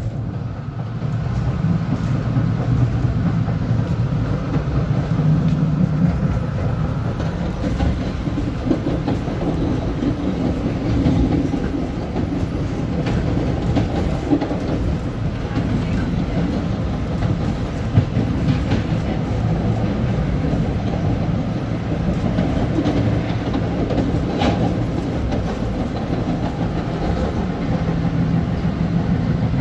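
LIRR M3 electric multiple-unit train running along the track, heard from aboard: a steady rumble with scattered wheel clicks over rail joints, and one sharper click about 18 seconds in.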